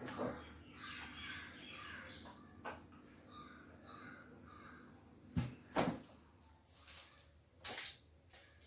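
Crows cawing faintly in the background. About five and a half seconds in come two sharp knocks, as a small cup is set down on the noodle cup, and near the end there is a short crinkle of a plastic sachet being handled.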